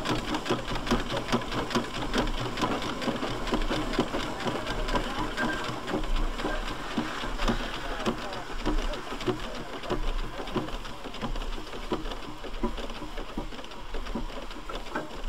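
A 1901 Burrell agricultural steam traction engine running, with a rapid, even beat of short mechanical strokes.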